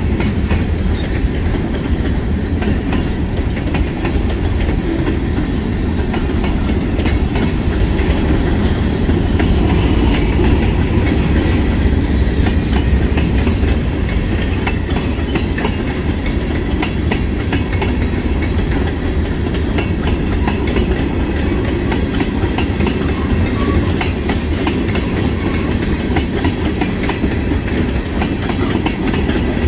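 Freight cars (boxcars, tank cars and covered hoppers) rolling past at close range: a steady low rumble of steel wheels on rail, with rapid clicking and clacking as the wheels cross the rail joints.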